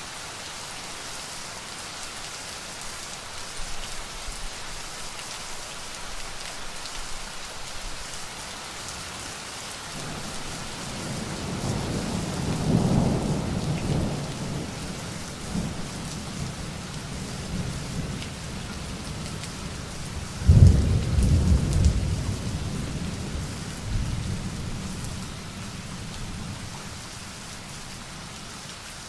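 Steady rain with thunder. A low rumble of thunder rolls in about a third of the way through, then a sudden, louder thunderclap comes about two-thirds of the way in and rumbles away over a few seconds.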